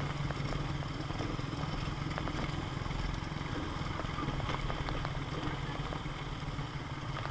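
Yamaha Sniper motorcycle engine running at low, steady revs while riding over a rough gravel track, with scattered clicks and rattles from the stones and the bike.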